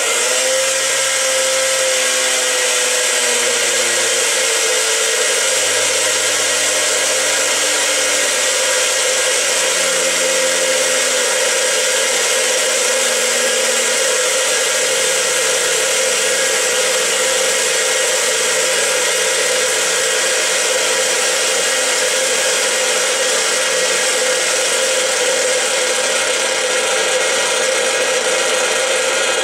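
Clockwork motor of a Hornby Meccano No. 4 tinplate boat released and running unloaded, its propeller spinning in air: a loud, steady whirr of spring-driven gearing that starts suddenly. Its pitch sinks slightly over the first few seconds, then holds steady.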